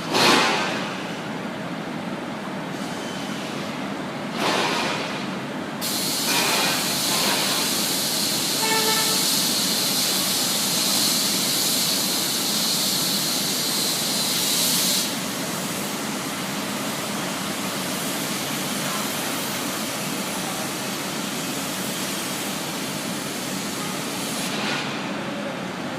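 High-speed soldering machine running with a steady mechanical noise, joined by a loud hiss from about 6 to 15 seconds in. A brief pitched tone sounds near 9 seconds.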